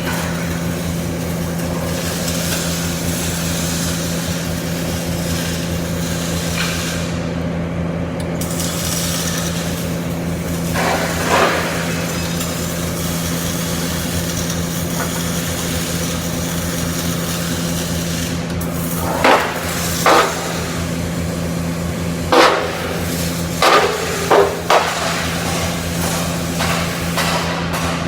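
CO2 (MIG) welding arc crackling steadily over a low machine hum, with a handful of short, louder metallic knocks about halfway through and again near the end.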